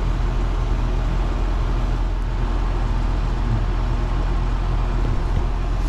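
Outdoor air-conditioning condensing unit running: a steady compressor hum under the rush of the condenser fan, heard close to the unit's grille.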